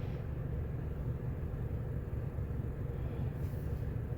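Roulette wheel spinning with the ball rolling around the track: a steady, even rumble.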